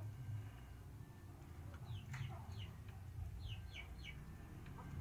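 Chickens calling softly: a few short, high, falling chirps in small clusters, about two seconds in and again near four seconds, over a low steady hum.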